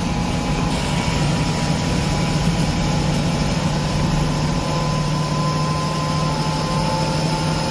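Steady low drone of a heavy vehicle's engine with road noise, heard from inside its cab while it drives along.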